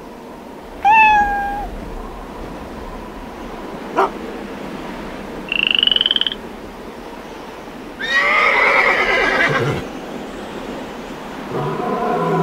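A string of different animal calls played one after another: a short high call about a second in, a sharp click, a brief high buzzy trill, then a long, loud wavering call, the loudest, and another call starting near the end.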